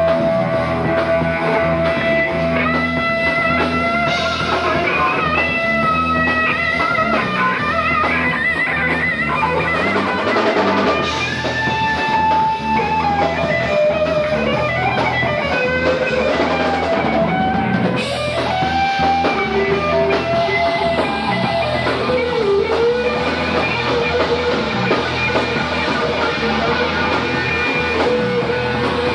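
Live rock band playing loud: an electric guitar plays a lead of long held notes, some of them bent, over a drum kit.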